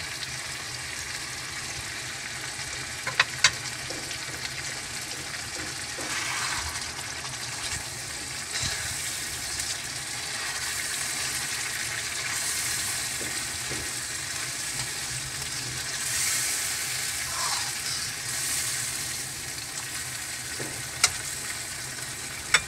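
Chicken karahi sizzling in a karahi pan while yogurt is stirred into it with a spatula. A few sharp clicks of the spatula against the pan: two a little after three seconds in, one near the end.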